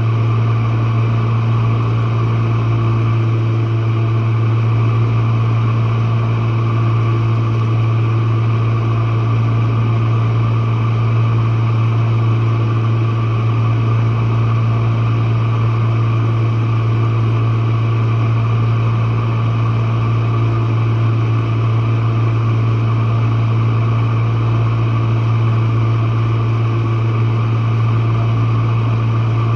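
Jenn-Air dishwasher running mid-cycle, heard at its bottom panel: its pump motor gives a loud, steady hum with a whirring, vacuum-cleaner-like sound over it and no change throughout.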